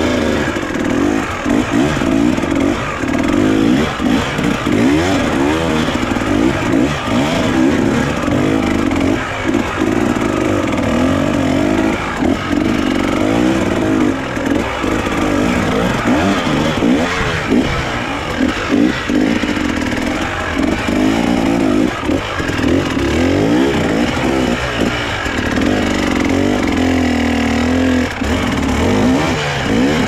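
KTM enduro motorcycle engine running at low speed, its revs rising and falling in frequent short blips as the bike is ridden slowly down a rocky gully, heard from the rider's helmet.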